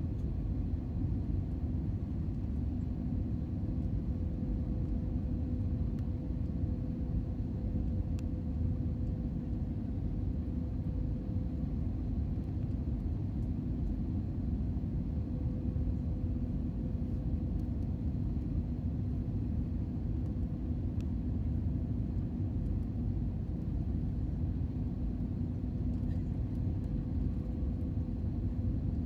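Cabin noise inside an Airbus A320neo on approach: the steady rumble of its CFM LEAP-1A turbofan engines and the airflow past the fuselage, with a steady low hum running through it.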